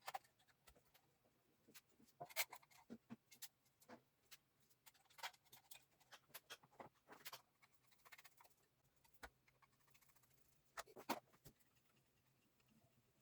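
Faint, irregular clicks and light knocks from hand work on small parts and tools, with a few sharper taps spaced several seconds apart over a faint steady hum.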